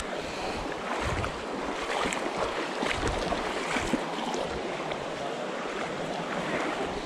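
Shallow river water rushing and splashing, with irregular splashes and low thuds every second or so, as of a hiker wading through the Virgin River.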